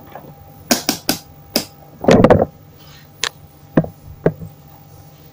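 Handling of a digital multimeter and its test probes on a TV circuit board: a series of sharp, separate clicks and taps, with a short, heavier rustling knock about two seconds in.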